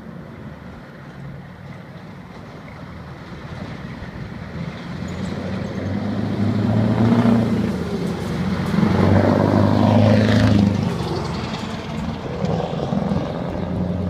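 Scania 164 480 truck's 16-litre V8 diesel driving past. Its engine hum builds to a loud peak about seven to ten seconds in, then fades as it pulls away, with the exhaust crackling (klapperen) during the pass.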